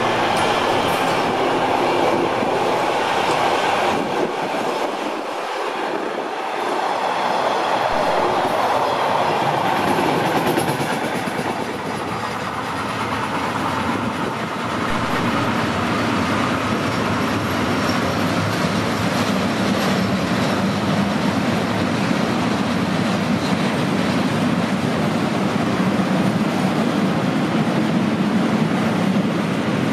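A freight train of car-transport wagons rolling past close by: steady wheel-on-rail running noise with the rattle of the wagons.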